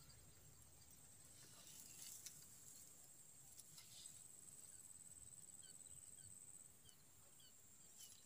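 Near silence: faint outdoor background with a thin, steady high tone and a few soft ticks.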